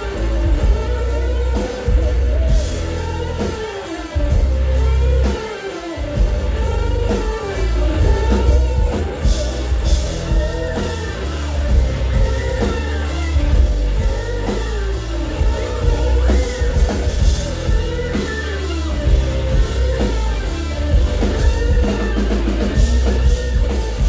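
Live rock band playing loudly: a full drum kit with cymbal crashes and heavy bass guitar under an electric guitar line that slides up and down in pitch again and again. The bass and kick drop out briefly about five seconds in.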